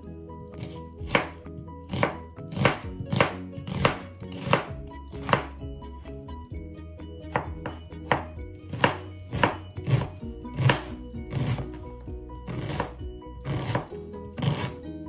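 Kitchen knife chopping an onion on a cutting board: a regular series of knife strikes, about one to two a second, with a short pause near the middle.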